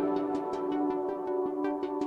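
Background electronic music: sustained synth chords over a quick, even ticking beat of about five ticks a second.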